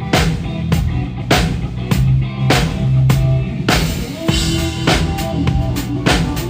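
A live band playing a song, with the drum kit loudest: regular kick and snare hits over a steady bass line and held notes from other instruments.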